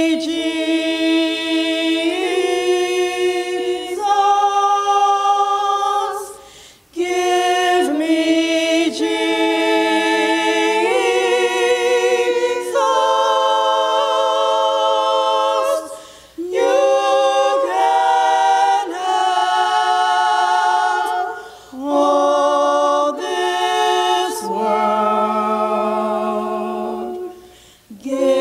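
A small ensemble of women singing a cappella in harmony, with no instruments. The voices hold long, sustained notes in phrases broken by short pauses for breath.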